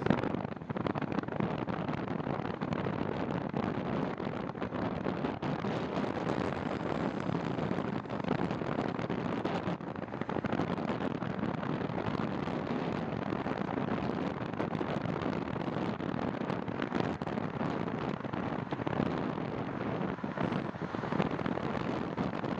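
Steady rush of wind over the microphone of a camera on a moving bicycle.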